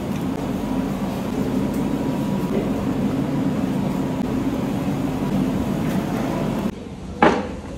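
Steady low roar of commercial kitchen machinery, which cuts off suddenly near the end and is followed by a single sharp clatter, like a knock on a steel pot.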